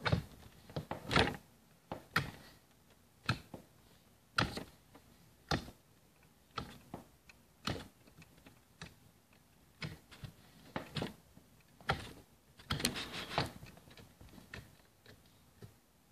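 Homemade slime poked with a fingertip on a plastic bin lid, giving a short wet click or pop about once a second, about a dozen times, with a longer run of squishing about three-quarters of the way through.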